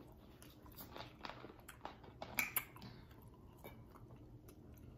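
Faint chewing and mouth smacks from people eating a seafood boil of shrimp, corn and mussels, with scattered short clicks, the loudest about two and a half seconds in.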